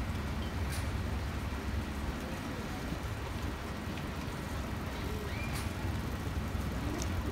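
Street ambience of a large crowd on a silent march: a steady low rumble with scattered faint voices and a few light clicks.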